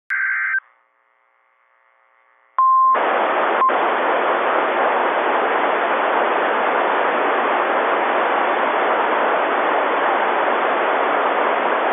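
Weather radio broadcast audio between messages. A short burst of data-like noise comes first, then a near-silent gap. About two and a half seconds in, a brief steady beep tone starts and ends with a click, followed by a long stretch of steady, loud static hiss.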